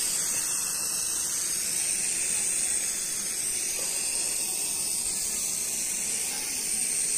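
Refilled aerosol spray-paint can, pressurised with pumped-in air, spraying paint with a steady hiss.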